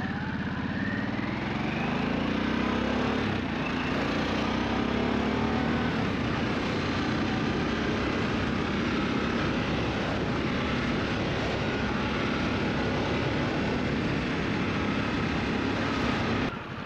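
Harley-Davidson Sportster S's Revolution Max 1250T V-twin pulling under acceleration. Its note rises over the first couple of seconds, then holds steady at speed with wind noise over it. The engine sound drops suddenly near the end as the throttle is rolled off.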